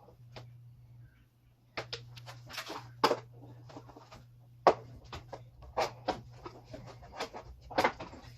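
A series of irregular clicks and knocks, loudest about three seconds in and again a little later, over a steady low hum.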